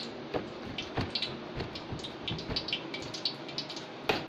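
Soft knocks of hands pressing and flattening pizza dough on a stainless steel table over a steady rushing hiss. Near the end a fork starts pricking the flattened dough, a quick run of sharp taps against the steel.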